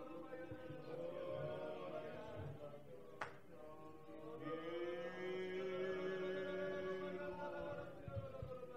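A congregation praying aloud together, many voices blending into a chant-like murmur over soft sustained music, with one sharp click about three seconds in.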